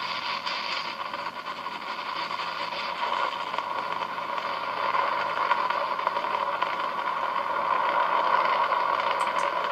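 Sound of a YouTube clip playing through a laptop's small built-in speakers: a steady rushing noise with almost no bass, slowly growing louder.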